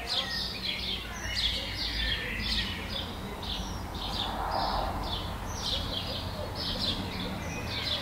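Small birds chirping steadily, short high notes about three a second, over a low background rumble.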